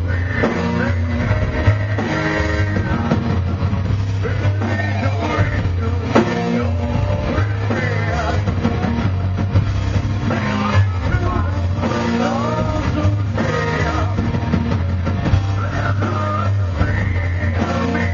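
Live heavy metal band playing loud: electric guitars over a heavy low end and a drum kit, with a vocalist singing into a handheld microphone.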